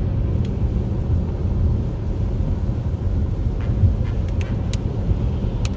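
Moving car's steady low road and engine rumble on a highway, with a few faint clicks in the second half.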